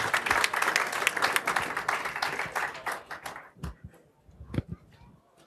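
Audience applause, many hands clapping, dying away about three and a half seconds in. Then come a couple of soft thumps and rustles from a headset microphone being pulled off.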